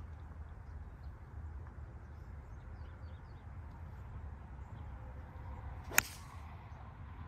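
A golf club strikes a ball once: a single sharp crack about six seconds in, over a steady low background rumble.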